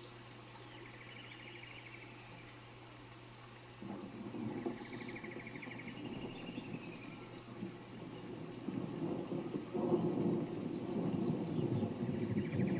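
Rain hissing while a bird repeats a short trilled call every few seconds. About four seconds in, a low rumble of thunder sets in and swells louder near the end.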